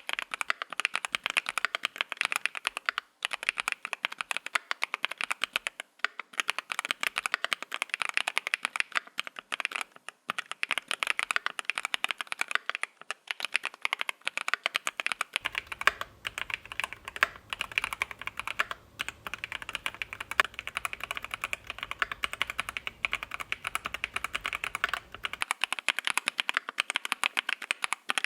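Rapid, continuous typing on a Createkeebs Thera 75 v2 mechanical keyboard: gasket-mounted, polycarbonate plate, factory-lubed Lotus switches and GMK keycaps. It makes a dense stream of keystroke clacks, with a few brief pauses in the first third.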